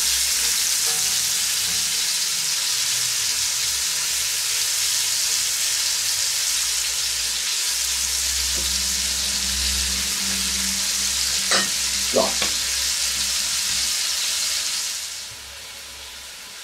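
Pieces of meat fillet searing in hot oil in a cast-iron Dutch oven, a steady sizzle, with a few short clicks about twelve seconds in. Near the end the sizzle drops much quieter.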